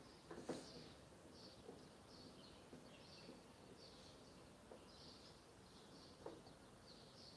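Near silence: faint room tone with soft high chirps repeating about twice a second, and a soft knock about half a second in and again near the end.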